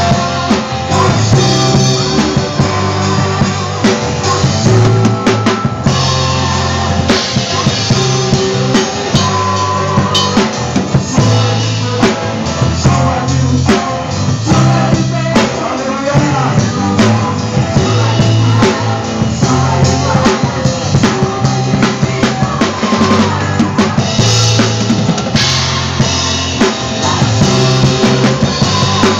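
Drum kit, with bass drum and snare, played along with a worship-song backing track; steady beat under pitched accompaniment.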